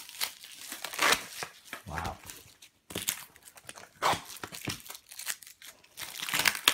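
Packing tape and clear plastic wrap crinkling and tearing in irregular bursts as taped-down decks of playing cards are pulled off a thin wooden board.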